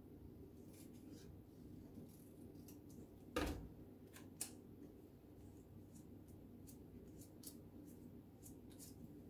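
Scissors snipping paper in short, faint snips, with one thump about three and a half seconds in and a softer knock a second later, over a low steady room hum.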